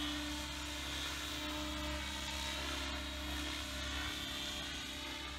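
Radio-controlled helicopter in flight, a steady whine of its motor and rotor blades with several held tones.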